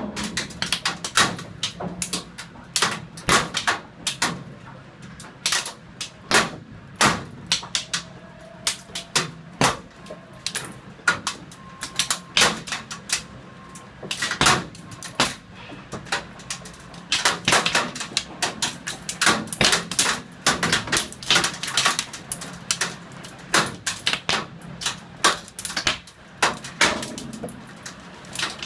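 Storm precipitation striking the window glass and outer sill in a thunderstorm: irregular sharp knocks, several a second, coming in dense clusters.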